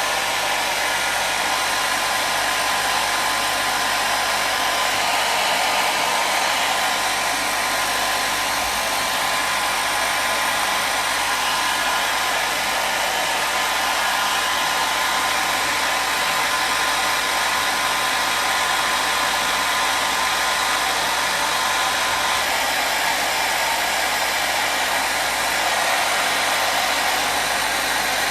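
Hair dryer blowing continuously, a steady even rush of air noise with a faint whine in it.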